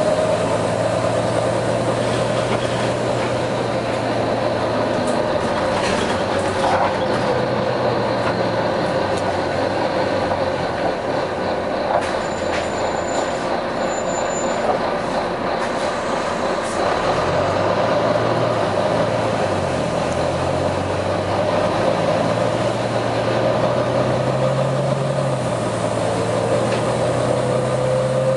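Volvo B9TL double-decker bus's engine running under way, with a hissing whine that slowly rises and falls over it, which the uploader suspects is a faulty turbo. The low engine note drops and climbs again in the middle as the revs change, and two brief high beeps sound about halfway.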